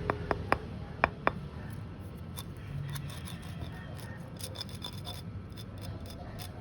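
Packaging and merchandise being handled. A handful of sharp clicks comes in the first second and a half, then light crinkling and ticking like plastic or paper wrap being moved.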